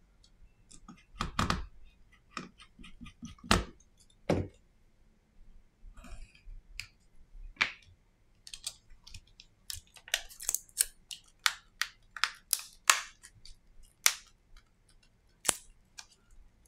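Irregular small clicks, taps and knocks of hand work on a disassembled Samsung Galaxy A40 phone: a screwdriver at its internals, then the phone's frame with its screen being picked up and handled. There are a few louder knocks in the first few seconds and a quicker run of sharp clicks in the second half.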